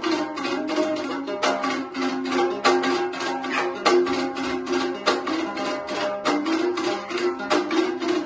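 Kyrgyz komuz, a fretless three-string lute, played with fast strumming strokes across the strings over a steady melody.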